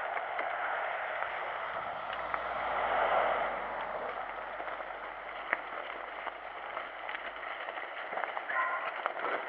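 Mountain bike rolling along a wet gravel track: a steady hiss of tyres and wind noise, swelling about three seconds in, with scattered small clicks from the stones and the bike.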